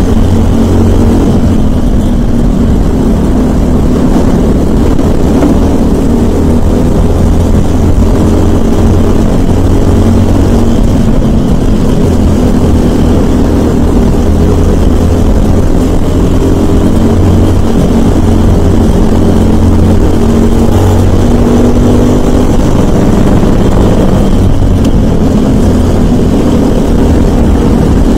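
Briggs & Stratton LO206 kart engine, a 206 cc single-cylinder four-stroke, running hard at racing speed, heard onboard the kart. It is loud and steady, its pitch wavering slightly.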